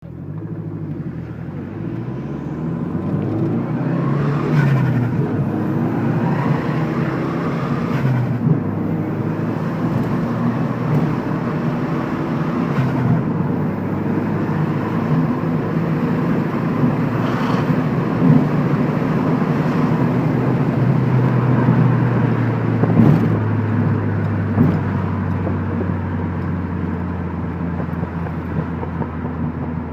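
Dodge Shadow GTS's 2.5-litre turbocharged four-cylinder running hard under boost at highway speed. The engine note climbs and wavers over the first few seconds, then settles into a steady drone.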